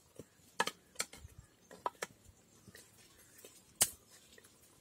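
Ladle stirring thick curry in a cooking pot, with a few scattered knocks and scrapes of the ladle against the pot; the loudest is a sharp knock near the end as the ladle is lifted out.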